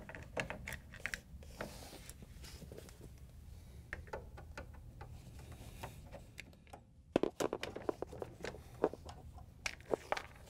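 Phillips screwdriver turning out the screws that hold a refrigerator's plastic base grille: scattered small clicks and scrapes, with a dense run of them about seven seconds in.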